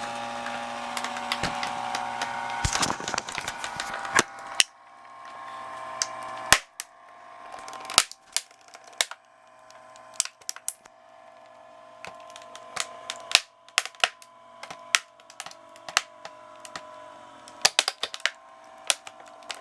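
Electric crushing ram whining steadily as it presses into a Sharp adding machine's keyboard, while the machine cracks and snaps again and again under the load, with the loudest cracks about four and a half and six and a half seconds in.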